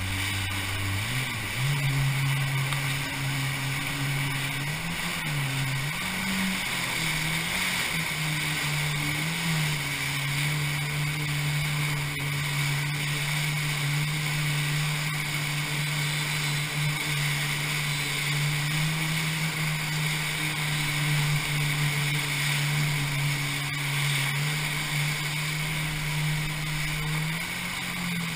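Kawasaki personal watercraft (jet ski) engine running under throttle, heard from on board over a constant rush of water. Its pitch climbs about a second in, wavers up and down a few times, then holds steady, rising again near the end.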